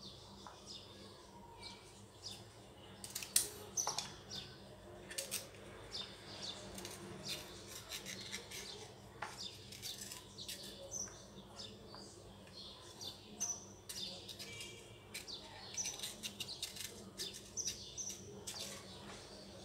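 Fresh flat green beans being snapped and trimmed with a small knife: irregular short, sharp snaps and clicks, loudest about three to four seconds in. Small birds chirp in the background.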